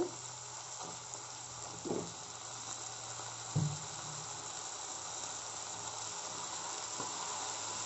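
Chopped vegetables sizzling steadily in hot oil in a non-stick pan, with soy sauce just poured over them. There are two soft knocks, about two and three and a half seconds in.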